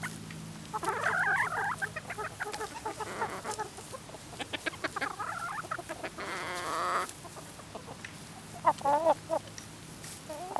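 Backyard hens clucking close by in short, scattered bursts, with one longer drawn-out call about six seconds in.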